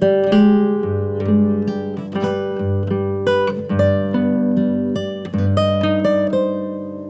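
Background music: acoustic guitar picking a melody, note after note ringing out.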